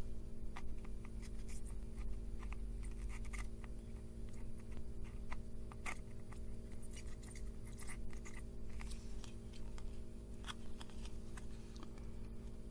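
Scattered small clicks and scratches of hand tools working on a circuit board, over a steady low hum.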